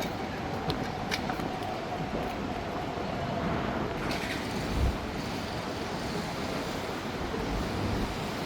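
Steady hum and hiss of an underground car park, with a few sharp clicks in the first second or so and a dull thump about five seconds in.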